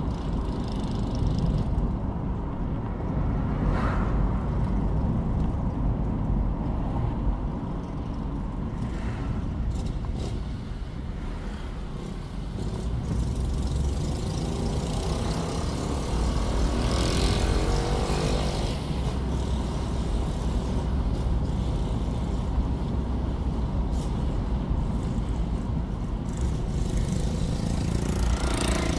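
Car driving on the road: a steady low rumble of engine and tyre noise. A louder swell of road noise rises and falls in the middle.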